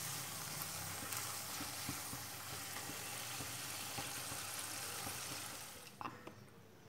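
Golgappa (pani puri) puris deep-frying in hot oil in a steel kadhai on high heat: a steady sizzle with a few faint clicks. The sizzle fades out near the end.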